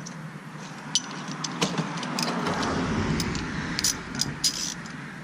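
Metal tools clinking and tapping against the brake caliper's pad-retaining pin, with a few sharp metallic knocks over a scraping, rustling sound in the middle.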